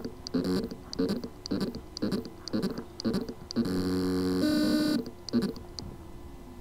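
WD VelociRaptor hard drive with loose motor contacts on its circuit board: short knocks about two a second, broken near the middle by a pitched buzz lasting about a second and a half, then more knocks. This is the sound of a spindle motor that can spin but cannot reach full speed because of the loose motor contacts.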